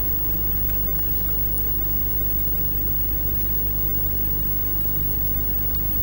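A steady low hum, even in level throughout, with a few faint ticks over it.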